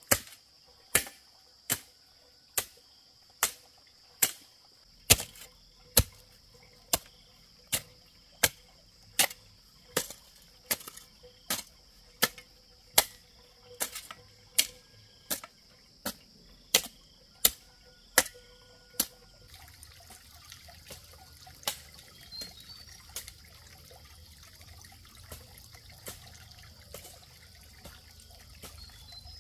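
Sharp, evenly spaced strikes of a hand tool, about one and a quarter blows a second, for some twenty seconds, then only a few fainter knocks. A steady high-pitched buzz runs underneath.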